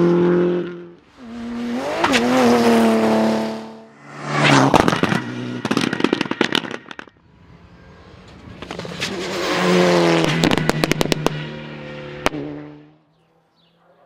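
Rally cars passing at full speed one after another, their engines revving hard with the pitch rising and dropping through gear changes. Rapid pops and crackles from the exhaust come in two runs, about the middle and towards the end. Near silence follows about a second before the end.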